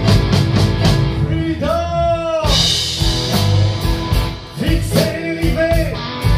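Live blues-rock band playing an instrumental passage between sung lines: drums, bass and electric guitars, with a lead line whose notes bend up and down, about two seconds in and again about five seconds in.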